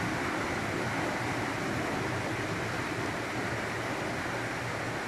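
Steady rush of water flowing through a laboratory open-channel flume with its gate open.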